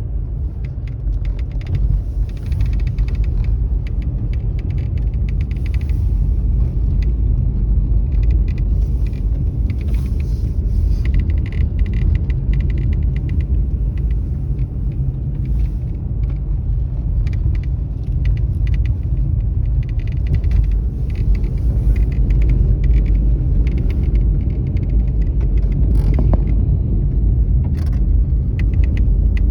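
Crackling, rattling clicks from the dashboard of a Mercedes-Benz E-Class (W213), heard inside the cabin. They come in irregular clusters over the car's steady low rumble. It is an intermittent rattle that dealer visits have not traced.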